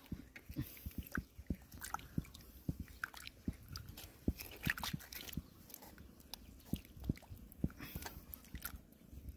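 Hands sloshing in shallow muddy water as a freshwater mussel is rinsed and rubbed clean, with small irregular splashes and many light clicks and scrapes of the shell.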